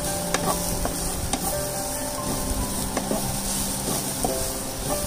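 Chopped small onions and curry leaves sautéing in a nonstick frying pan, sizzling steadily. A spatula stirs them, with a few sharp scrapes and taps against the pan.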